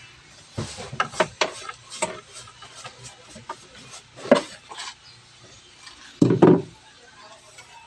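A plastic hand brush sweeping wood splinters and small scraps across a plywood board, with light clatters and knocks as the debris is pushed about. A louder thump comes a little after six seconds.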